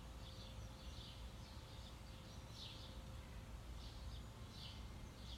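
Faint bird calls, short and high, repeating about once a second over a steady low outdoor rumble, with a thin steady hum.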